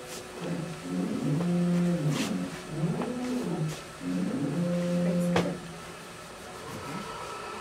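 RTI Vortex 4200 wide-format Memjet printer running a test print: its motors hum in tones that slide up and down again and again, with a sharp click about two seconds in and another about five seconds in.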